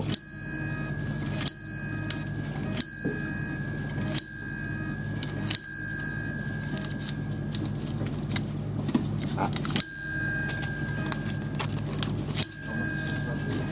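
Bus numbered-ticket dispenser ringing its 'chin' chime each time a ticket is pulled, a click followed by a ringing ding, seven times, mostly about one and a half seconds apart with a longer gap midway. A steady low hum runs underneath.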